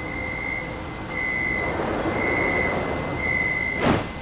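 Metro train door-closing warning heard from inside the car: a high beep repeating about once a second while the doors slide shut, ending in a sharp thump as the doors close near the end, with the beeping going on after.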